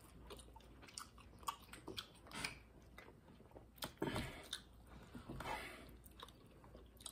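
Quiet chewing and eating sounds, with scattered small clicks and taps and a few short, slightly louder bursts around the middle.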